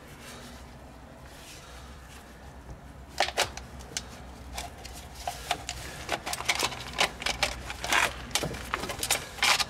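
Gloved hands working a greased rubber CV boot along a driveshaft: scattered rubbing and clicking sounds, starting about three seconds in and coming more often toward the end.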